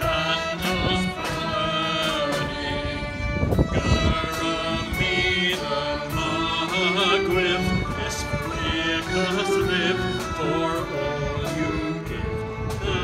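Youth string orchestra of violins and cellos playing sustained notes, with voices singing along.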